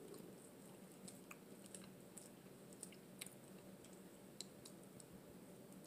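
Faint chewing of soft mashed potatoes, with small scattered mouth clicks and smacks.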